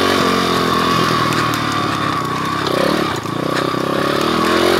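Pit bike engine revving under throttle as the bike is ridden, its pitch rising and falling with the throttle. It eases off briefly a little past halfway, then climbs again near the end.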